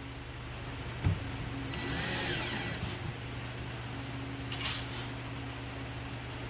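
Electric drill run twice in short bursts, driving screws into solid wood: a longer run of over a second with the motor pitch rising and falling, then a brief one. There is a single knock just before the first run.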